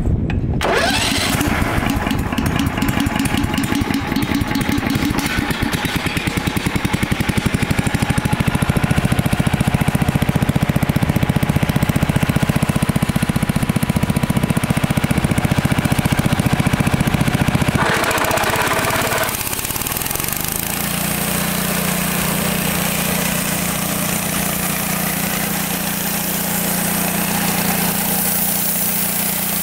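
Kohler Command Pro 15 single-cylinder engine on a Wood-Mizer LT15 bandsaw mill starting on the key and running with a fast, even firing beat. About 18 seconds in the sound changes briefly, then settles into a steadier, slightly quieter hum.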